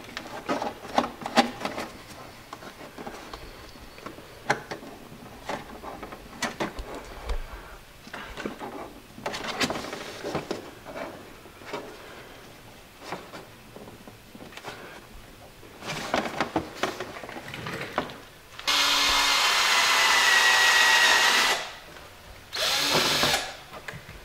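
Scattered light clicks and knocks of parts being handled, then a cordless drill running in two bursts near the end, the first about three seconds long and the second shorter, boring through a plastic mud flap.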